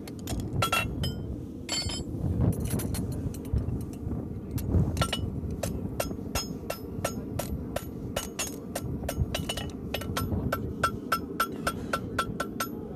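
Farrier's hammer striking a steel horseshoe on an anvil, each blow ringing: irregular strikes at first, settling into an even beat of about two to three blows a second from about ten seconds in. A steady low rumble runs underneath.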